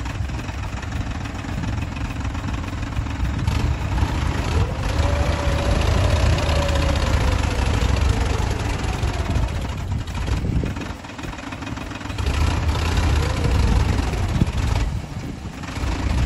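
Diesel engine of a Swaraj 963 FE tractor running steadily under load as it pulls a plough through the soil: a deep, continuous rumble that dips briefly twice.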